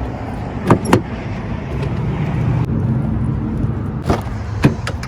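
Minivan running, a steady low engine and road rumble, with a few sharp clicks and knocks: a pair about a second in and three more near the end.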